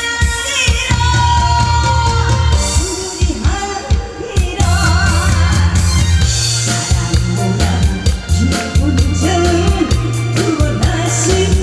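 Song played from a backing track, with a steady drum and bass beat and a singer's voice over it.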